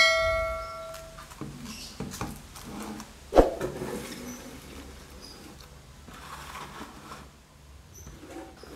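A bell-like notification chime rings and fades over about a second. Then hands handle a plastic-wrapped wireless router and its cardboard box on a wooden table: soft rustling and crinkling with light clicks, and one sharp knock about three and a half seconds in.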